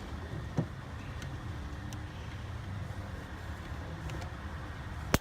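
Steady low rumble of a motor vehicle, with a few faint clicks and one sharp click near the end.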